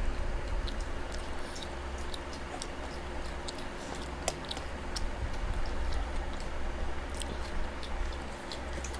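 People chewing and eating, with many small scattered mouth clicks and bites, over a steady low hum.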